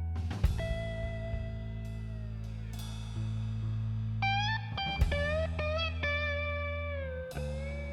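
Background music: a guitar instrumental, with a lead line of held and bending notes over a steady bass.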